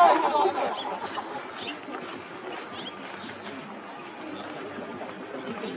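A bird chirping over and over: a short, high, falling chirp about once a second.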